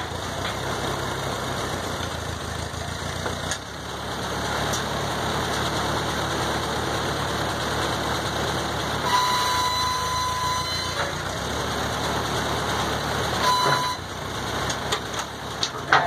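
Old tractor engine running steadily at idle. About nine seconds in comes a high squeal lasting about two seconds, with a shorter one later, and a few sharp knocks near the end.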